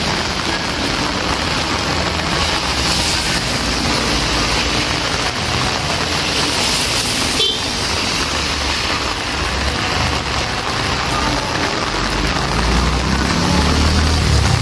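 Heavy rain falling steadily on a wet street, with cars driving past through the water, their engines and tyres audible under the rain. A low engine rumble grows louder near the end, and there is one short sharp click about halfway through.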